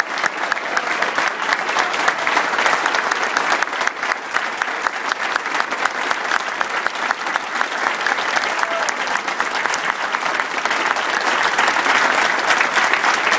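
A large indoor crowd applauding steadily, many hands clapping at once, with the clapping swelling slightly near the end.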